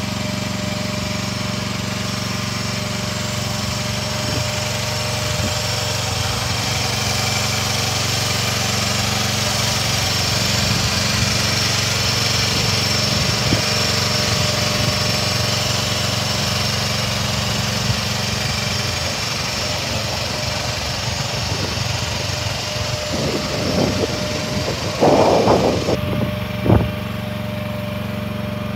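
Mini excavator's small engine running steadily at an even speed. Near the end come a few sharp knocks and a short, louder clatter.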